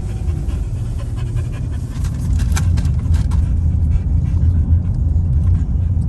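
Steady low rumble of a four-wheel-drive truck driving through deep snow, with a scatter of sharp clicks about two to three and a half seconds in.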